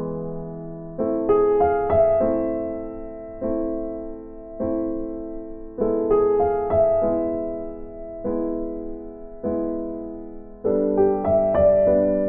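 Background music: slow piano chords struck about once a second or so, each ringing out and fading.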